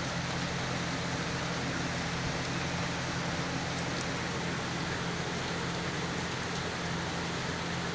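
Steady rain falling, with a few sharp raindrop ticks and a steady low hum underneath.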